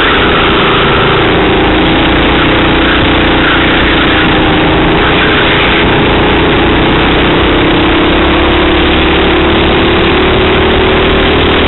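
Racing kart engine running at speed, heard loud from a camera mounted on the kart. The engine note is steady, then climbs gradually through the second half.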